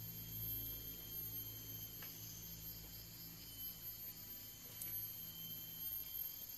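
Insects trilling steadily in several high pitches, over a low steady hum, with one faint click about five seconds in.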